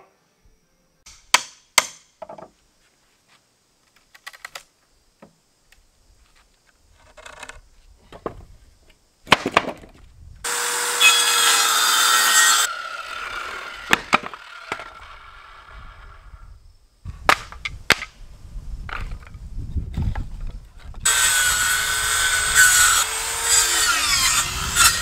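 Corded circular saw cutting through wooden pallet boards in two loud runs, one about ten seconds in and one over the last four seconds, with a few knocks of the wood being handled before the first cut. The motor note dips as the blade bites near the end.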